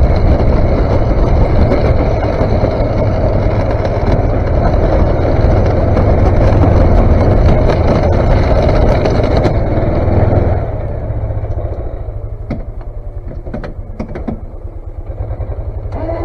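A vehicle engine on the snow plow running hard, then dropping back to a steady idle about ten seconds in, with a few sharp clicks and knocks after it settles.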